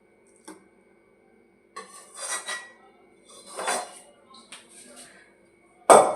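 A cooking utensil scraping cooked greens out of a kadai: three short scrapes about a second apart, then a sharp metal clank near the end.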